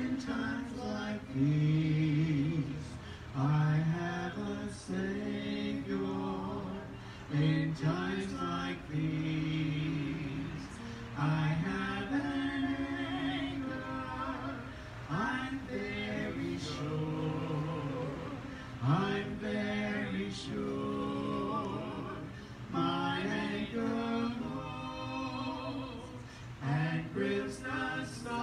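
Voices singing a hymn, mostly unaccompanied, in held notes and phrases with short breaks between them.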